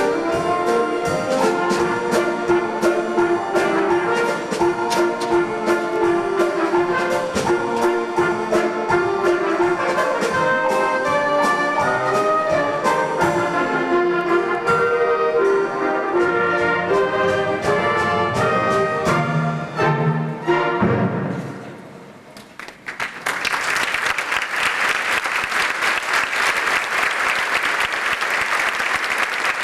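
Live pit orchestra playing a show number and closing on a final chord about two-thirds of the way through; after a short pause the audience breaks into steady applause.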